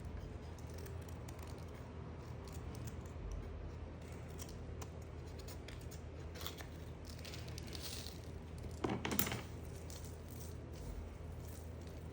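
Soap being cut with a blade: light crisp scrapes and crackles, with one louder crunching scrape about nine seconds in.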